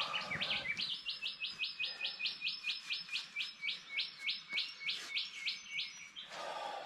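A bird calling a fast, even run of about twenty identical sharp high notes, roughly four a second, stopping near the end.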